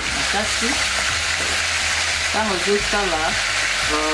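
Sliced tomatoes and onions sizzling in hot oil in a pot, a steady frying hiss, while a metal utensil stirs them. A voice with a wavering pitch comes and goes over it, most of all in the second half.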